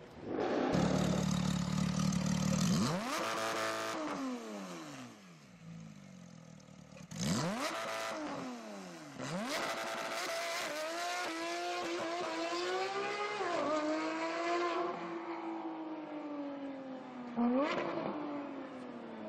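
Supercar engines revving and accelerating, the pitch rising and dropping through several bursts, with gear changes and passes going by.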